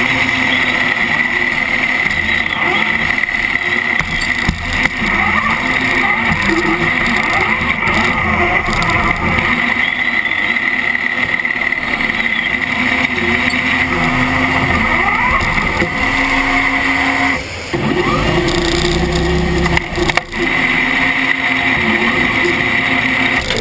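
Electric drive motors and gearboxes of a FIRST Robotics Competition robot whining up and down in pitch as it drives and manoeuvres, heard up close from a camera mounted on the robot. A steady high whine runs underneath and drops out for a couple of seconds about three-quarters of the way through.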